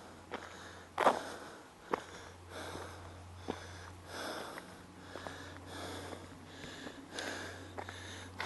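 A person breathing audibly in and out through the nose close to the microphone while walking, at about one breath a second. A few sharp knocks come through, the loudest about a second in. A low steady hum runs underneath.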